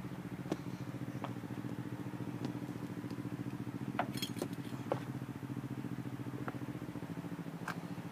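Car engine idling steadily with a fast, even beat. A few light clicks and taps come over it.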